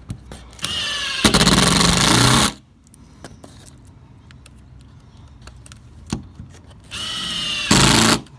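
Cordless drill driving screws, in two short runs: each starts softer with a rising whine, then goes to full speed for about a second before stopping.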